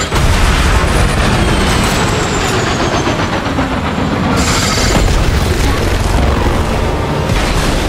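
Military helicopter flying low overhead with loud, steady rotor and engine noise. About four and a half seconds in, there is a sudden burst and boom as a launched shot hits the helicopter.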